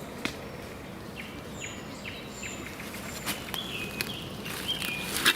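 Songbirds calling in a forest: a string of short falling chirps and a few high thin whistles over a steady background hiss. A few sharp clicks break in, about a third of a second in, around three and four seconds, and loudest near the end.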